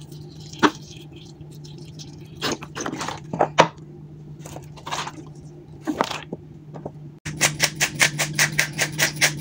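A few scattered taps and clicks from a seasoning shaker and a steel bowl being handled, then, about seven seconds in, a hand-twisted pepper mill starts grinding: a fast, even run of rasping clicks, about six a second. A steady low hum runs underneath.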